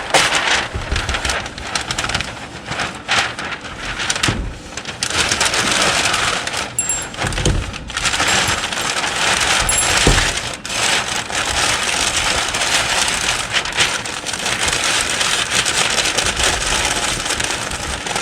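Kraft packing paper crinkling and rustling steadily as it is wrapped around a torque wrench, with a few dull knocks of the wrench against the table.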